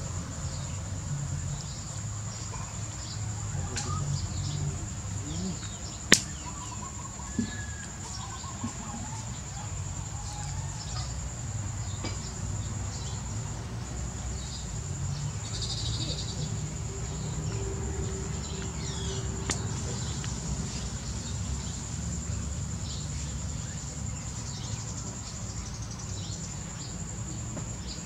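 Outdoor ambience: a steady high-pitched insect drone with faint, scattered bird chirps over a low rumble, broken by a sharp click about six seconds in and a smaller one shortly after.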